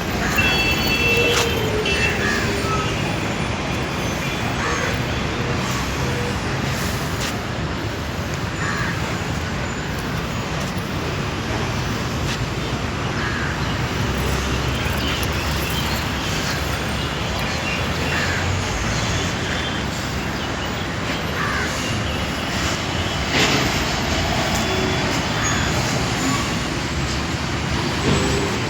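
Steady road-traffic rumble, with short bird calls scattered over it.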